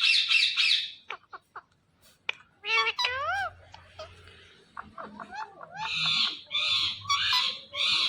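Indian ringneck parrot calling. It opens with a harsh pulsing screech, then gives a few clicks and short whistled notes that slide up and down, and ends with a run of harsh squawks, about three a second.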